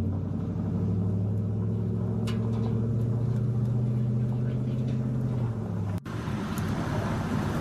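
A motor vehicle's engine running steadily with a low hum. About six seconds in the sound cuts out abruptly and is followed by a rougher rumble.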